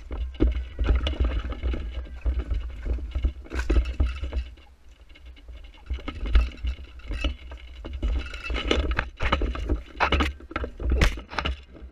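Handling noise on a rifle-mounted action camera: clothing and gear rustling, with irregular clicks and knocks as the rifle is moved around, over a constant low rumble.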